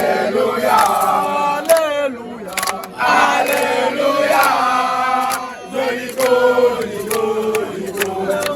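A group of voices, mostly men, singing and chanting together in a supporters' song, with scattered sharp hits through it.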